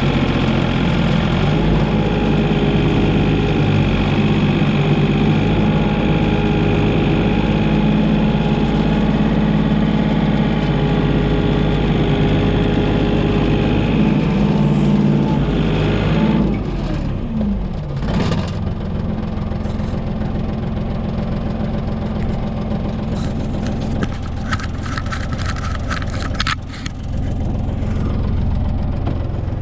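Komatsu PC28 mini excavator's diesel engine running at high revs, then dropping its revs about halfway through and running on at a lower, steady speed. A run of sharp clicks and cracks comes near the end.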